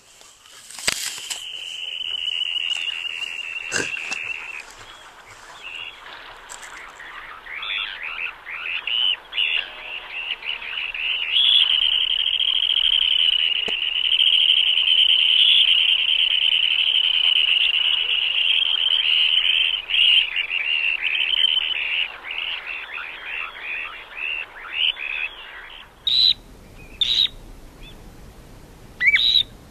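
Birds calling: one long held note near the start, then a fast, dense run of quick repeated calls that builds, stays loud for a long stretch and thins out, with a few sharp clicks near the end.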